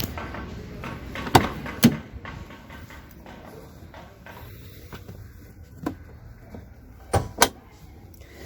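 Clunks and clicks from the bonnet of a Tata Safari Dicor being released and opened: two sharp knocks about a second and a half in, a lighter one later, and another quick pair near the end.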